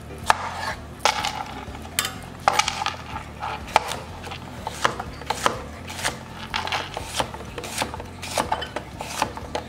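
Chef's knife chopping cucumber on a plastic cutting board: sharp knocks of the blade hitting the board, sparse at first, then about two or three a second in an uneven rhythm.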